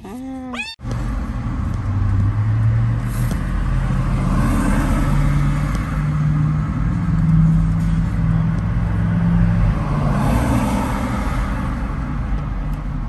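A Bengal kitten meows once, a short call that rises and falls in pitch, heard from inside a car. Then comes the steady running noise of the stopped car, with a low hum that slowly climbs in pitch and then settles back down.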